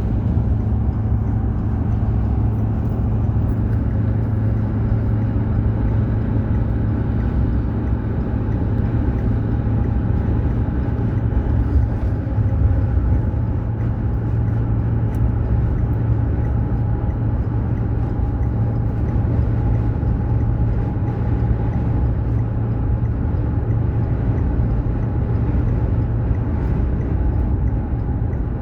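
Vehicle driving at steady speed: a constant low drone of engine and road noise.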